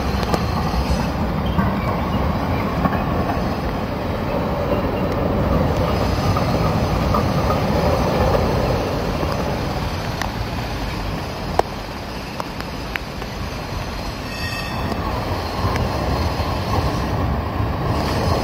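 Articulated street trams running on street track through curves, with the wheels rumbling on the rails and some squeal, amid city traffic noise. A few sharp clicks, and a brief high ringing tone about three-quarters of the way through.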